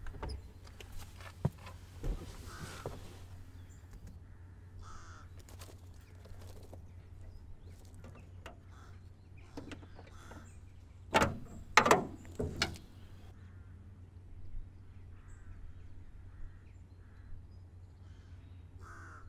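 Crows cawing now and then over a steady low hum. About eleven and twelve seconds in come two or three loud clunks of the car's bonnet and its stay rod being propped open.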